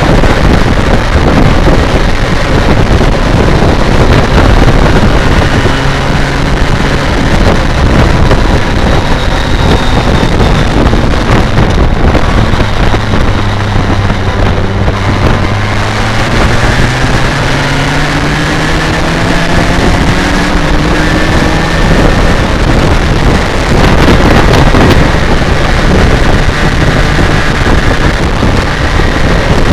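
BMW K1200R Sport's inline-four engine running on the road, half buried under heavy wind noise on the microphone. Midway its note climbs steadily for several seconds as the bike accelerates.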